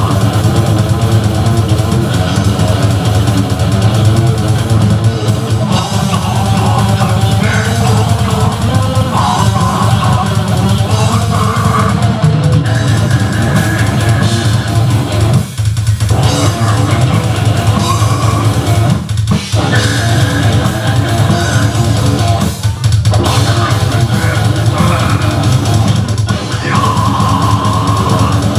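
Live metal band playing: distorted electric guitars over bass and drum kit, with three short breaks where the band stops together in the middle stretch.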